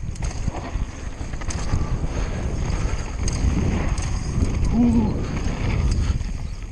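Conway WME mountain bike descending a loose downhill trail at speed: wind buffeting the microphone over the rolling of tyres on loose dirt and gravel, with the bike rattling and knocking over the bumps.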